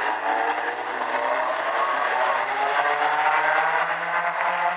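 A pack of mini stock race cars running together, several engines overlapping at once, their pitches gliding upward as they accelerate.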